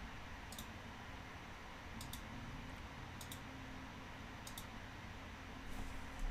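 Computer mouse clicking, four quick double clicks spread through, over faint room tone.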